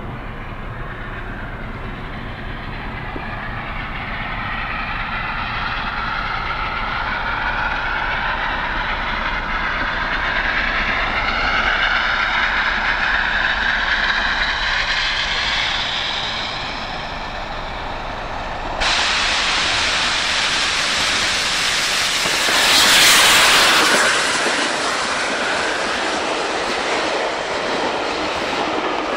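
Steam locomotive 35028 Clan Line, a rebuilt Merchant Navy class Pacific, approaching and passing at speed with a train of Pullman coaches. The sound grows louder as the engine nears, jumps suddenly and peaks as it goes by about two-thirds of the way in. It then settles into the steady run and clickety-clack of the coaches rolling past.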